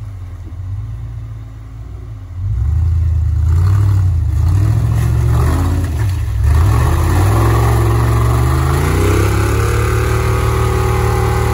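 Off-road vehicle's engine revving hard under load as it struggles to climb out of deep ruts with its axle hung up. It gets louder about two and a half seconds in, then its pitch rises over a few seconds and holds high.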